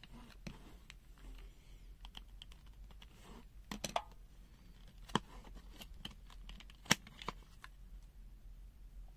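Faint, irregular light clicks and taps from handling the plastic parts of an opened digital multimeter, with sharper knocks about four, five and seven seconds in.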